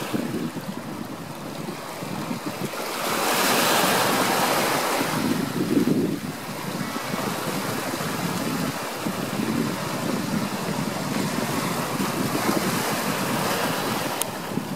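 Small sea waves washing in and splashing over rocks and pebbles. A louder rush of surf comes about three seconds in and eases off about two seconds later.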